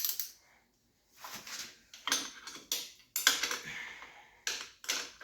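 Metal hand tools and small engine parts clinking and rattling as they are handled. Several short clanks come in quick succession, with a longer rattling stretch a little past the middle.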